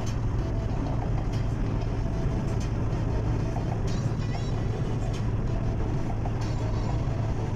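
Steady road and engine noise inside a Toyota car cruising at motorway speed, dominated by a constant low hum.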